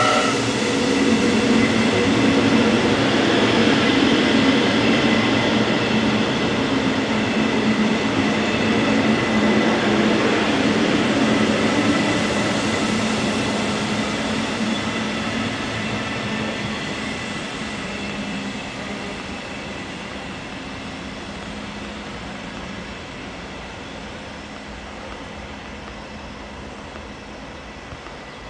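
Electric commuter train running past along a station platform, with a steady motor hum and whine over the noise of its wheels on the rails. The sound fades gradually through the second half as the train moves away.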